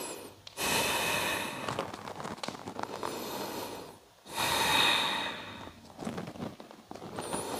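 A person breathing deeply and audibly, about three long, slow breaths in and out, each lasting two to three seconds, while holding a yoga forward fold.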